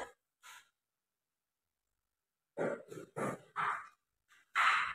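A few short, breathy vocal sounds from a man, like sighs or muttered breaths: a cluster of four about two and a half seconds in, and one more near the end.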